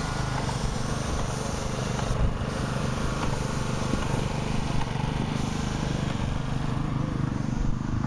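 An airless paint sprayer's motor running steadily, with the hiss of white field paint spraying from the hand gun in two long bursts that stop about five seconds in.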